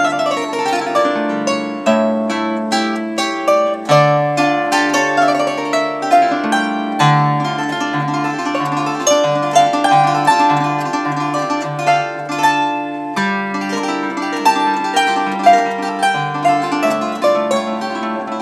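Traditional old-world (starosvitska) bandura played solo: quick plucked treble notes over repeated, changing bass notes.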